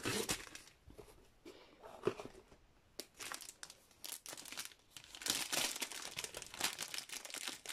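Plastic wrapping around a rolled diamond-painting canvas crinkling and crackling as it is handled and unwrapped. Sparse at first, thicker in the second half.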